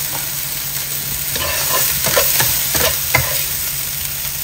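Water spinach sizzling as it is stir-fried, with a steady frying hiss. A spatula scrapes and tosses it in a quick run of strokes through the middle.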